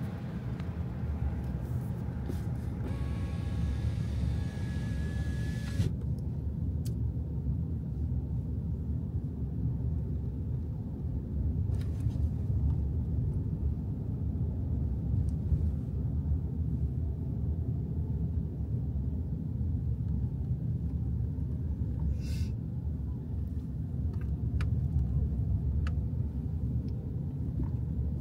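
Steady low rumble of a car driving, heard from inside the cabin. A brighter hiss with a faint steady whistle over it cuts off abruptly about six seconds in, leaving only the low rumble.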